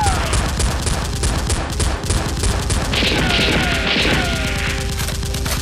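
Rapid automatic gunfire sound effects, a fast run of shots at a steady rate, dubbed over a toy-blaster firefight.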